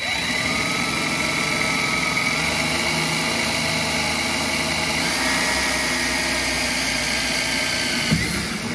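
Cordless DeWalt drill/driver running steadily under load, driving into the aluminum speaker bracket and door metal with a self-tapping screw. It starts abruptly, its pitch shifts slightly about five seconds in, and it stops near the end.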